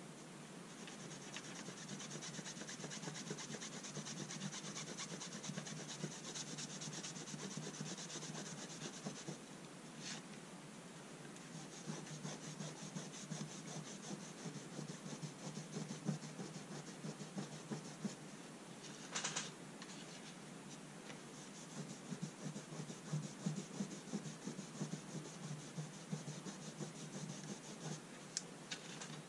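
Green cloth pad scrubbed in quick back-and-forth strokes over a small brass scale plate. The rubbing pauses twice, and there is a short sharp knock at the second pause.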